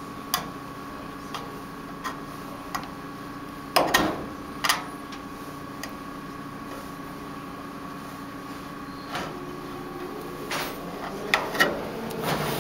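Kitchen knife being levered around inside a tin can's lid to cut it open: irregular sharp metallic clicks and knocks of the blade on the lid and can, the loudest pair about four seconds in and a cluster near the end.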